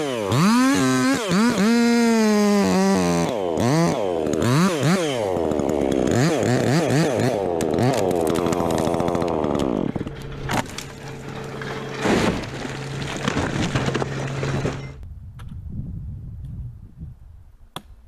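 Chainsaw engine revving up and down repeatedly under the throttle, then settling to a steady idle about ten seconds in, and stopping suddenly about fifteen seconds in.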